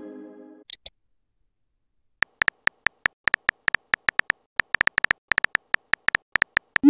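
Synthetic phone-keyboard typing clicks in a quick, irregular run, one click per letter being typed into a chat app. A chiming message tone fades out at the start, and a short rising send blip comes at the very end.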